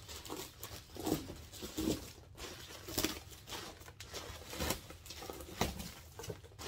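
Bubble wrap and ribbon rustling and crinkling in irregular bursts as hands pull the packing out of a doll box.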